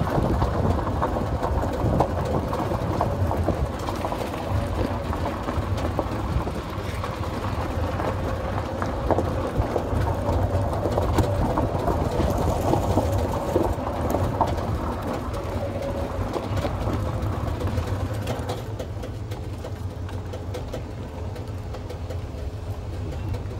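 A golf cart driving along, heard from on board: a steady low running rumble with small rattles and road noise, easing slightly near the end.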